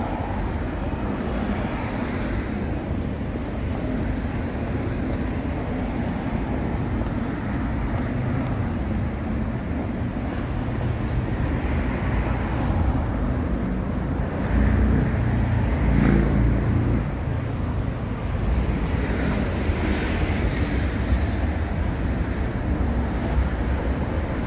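Steady road traffic noise from passing cars, swelling louder for a moment about fifteen seconds in.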